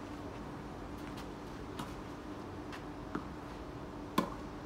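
Tennis ball being hit and bouncing during a rally on a clay court: a few faint, short pocks, then a sharper, louder one near the end. A steady low hum runs underneath.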